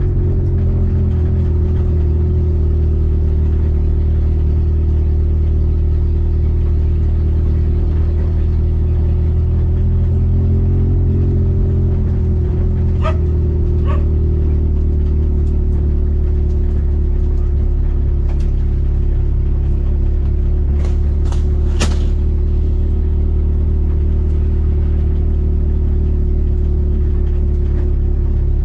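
A car driving, heard from inside the cabin: a steady, loud, low engine and road rumble. A few brief sharp sounds cut through it about halfway in and again about three-quarters of the way in.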